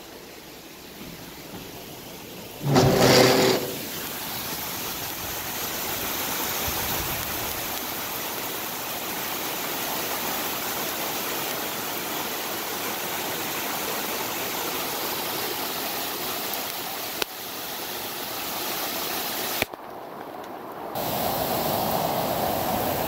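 Steady rush of torrential rain and floodwater pouring down a street. About three seconds in there is a brief loud pitched sound, after which the rush comes in louder.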